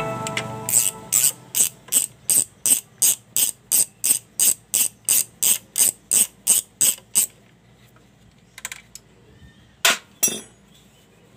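Socket ratchet wrench clicking in an even run of about three clicks a second while it undoes a bolt on a Yamaha Mio scooter's CVT cover, stopping about seven seconds in. A few single metallic clicks follow.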